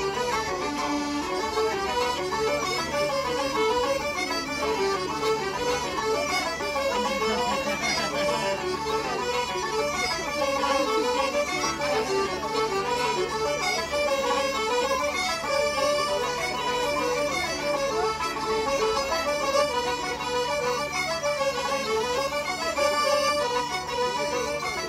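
Traditional Irish-style session music: uilleann pipes, fiddle, banjo, accordion and bodhrán playing a dance tune together. The pipes' steady drone sounds under the quick melody and drops out for a few seconds near the middle.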